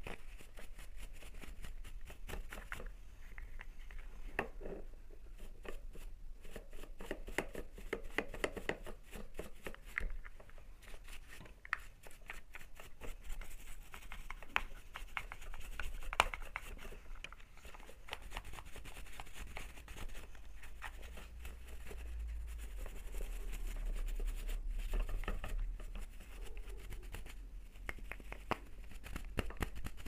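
A paintbrush's bristles scrubbing dust off an electric fan motor's copper windings and metal frame: a continuous run of quick scratchy strokes with small clicks.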